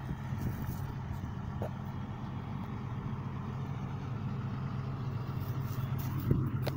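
Wheel loader's diesel engine running steadily as it drives over a silage clamp, compacting the forage. There is a brief knock near the end.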